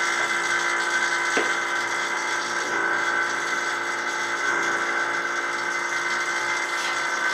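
Electric AC vacuum pump running with a steady hum and whine while it evacuates a car's air-conditioning system through a manifold gauge set. A couple of faint knocks come about a second and a half and nearly three seconds in.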